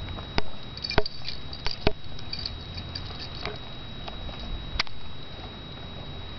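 A handful of sharp clicks and taps at irregular intervals, most in the first five seconds, over a low steady rumble.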